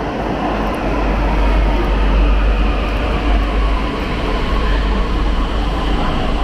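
Delhi Metro train pulling into an underground station platform behind platform screen doors: a loud, steady deep rumble with a rushing roar over it, swelling a little about one to three seconds in.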